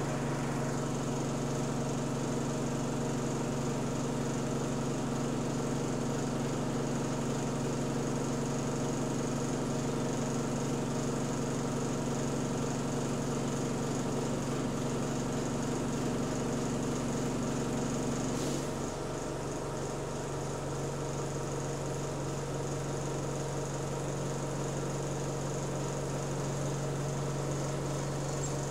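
Diesel engine of the GAL SE62 single-deck bus heard from inside the saloon, a steady droning moan while the bus drives. About eighteen seconds in, the higher part of the drone stops and the hum settles lower.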